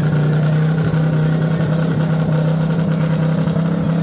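An engine running steadily at an unchanging pitch, holding one constant speed.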